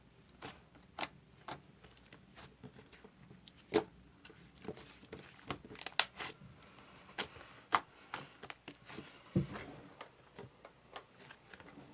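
Slime being squeezed and worked by hand, giving off irregular sharp clicks and pops.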